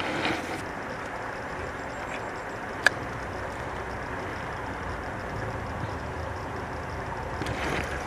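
Steady rush of a small stream's flowing water, with one sharp click about three seconds in.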